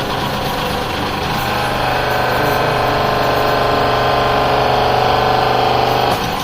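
Electric motor of a hose-workshop machine running steadily. About a second in a steady hum of several tones joins it under load, and it cuts off suddenly near the end.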